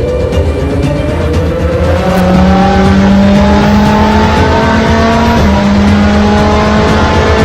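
Race car engine accelerating hard, its pitch climbing, dropping back at an upshift and climbing again, getting louder about two seconds in.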